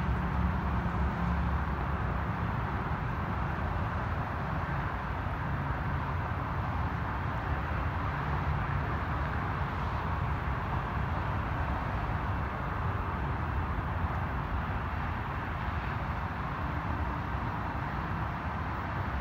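A train rolling past: a steady low rumble with an even rushing noise and no horn.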